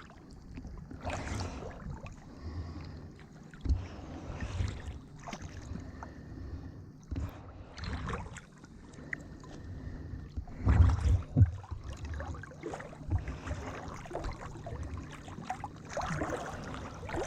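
Water splashing and slapping around a boat's hull, in uneven surges, with wind buffeting the microphone.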